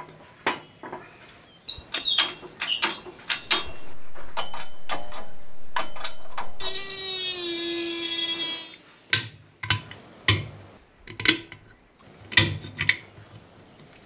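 Metal parts knocking and clanking as an aluminium gearbox casing is worked in a hydraulic shop press to seat a bearing. About four seconds in comes a loud steady hiss, then a drawn-out squealing tone for about two seconds, then another run of sharp knocks with a low ring.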